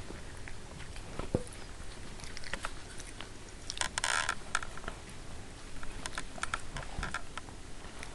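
Siberian husky puppies scuffling and nosing right at the camera: scattered small clicks and taps, with a brief rustle about four seconds in as a puppy's fur presses against the microphone.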